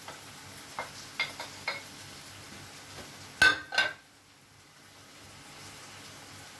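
Metal cooking utensils clinking against a pan, with faint sizzling from the frying pan. There are four light clinks in the first two seconds, then two louder clangs about three and a half seconds in.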